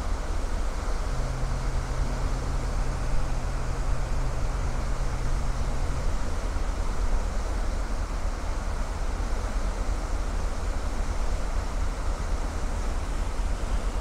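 Wind buffeting the microphone over the steady low rumble of the ferry M/S Viking Amorella under way through sea ice. A steady low hum joins about a second in and stops about six seconds in.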